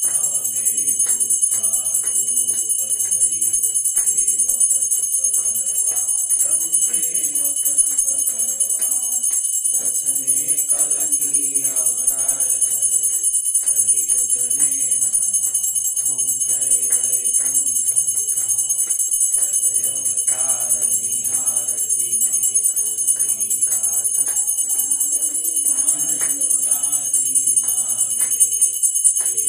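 Small hand bell rung without pause through a Hindu aarti, a steady high ringing, with voices singing the aarti underneath.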